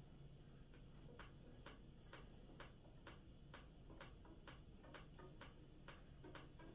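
Near silence, with faint, regular ticking about twice a second that starts about a second in.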